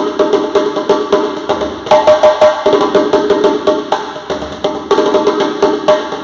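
Drum music: a drum played in a quick, steady rhythm with sharp clicking strokes, over a phrase that repeats about every three seconds.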